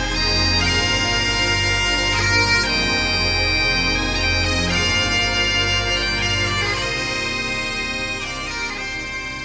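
Bagpipe music: a melody played over steady drones, fading out near the end.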